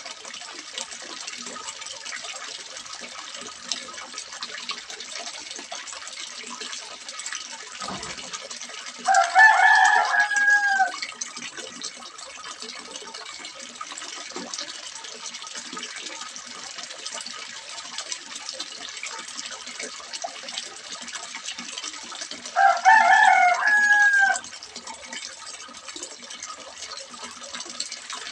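Water splashing steadily into a small fish pond. A rooster crows twice, about nine seconds in and again about twenty-three seconds in, each crow lasting about two seconds and louder than the water.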